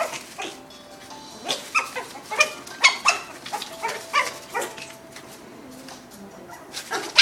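Puppies yapping as they play-fight: a quick run of short, high-pitched barks, a pause, then a couple more near the end.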